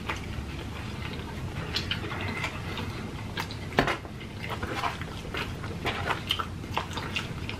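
Close-miked chewing of pizza and breadsticks: irregular wet mouth clicks and smacks, with one louder smack about four seconds in.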